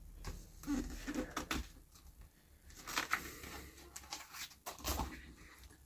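A paper picture-book page being handled and turned over by hand: faint rustling and brushing of paper in a few short bursts.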